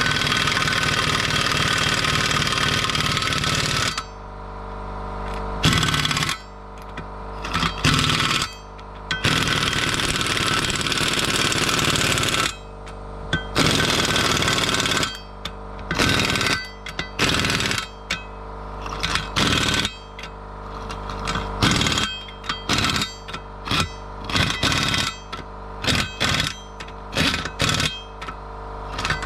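Pneumatic impact wrench (windy gun) hammering wheel nuts tight on a split-rim wheel. It runs in two long bursts of several seconds, then in many short bursts of a second or less as each nut is snugged up.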